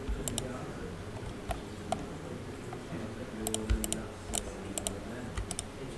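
Computer keyboard and mouse clicking in irregular single presses, with a quick run of clicks about three and a half seconds in.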